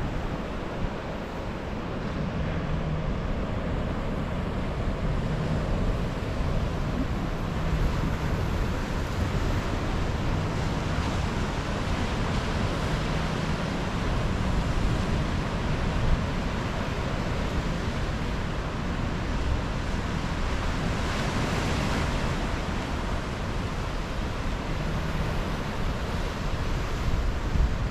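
Pacific surf washing and breaking on a rocky shore in a steady rush, with wind buffeting the microphone. One wave breaks a little louder about two-thirds of the way through.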